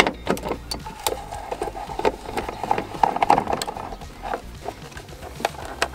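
Socket ratchet clicking as the taillight bolts are backed out: several sharp clicks, then a run of rapid ratcheting in the middle, over background music.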